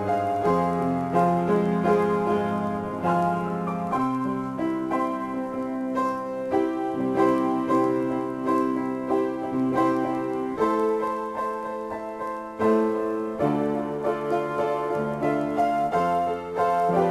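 Solo improvised piano playing: sustained chords that change every second or few seconds, with melody notes above them.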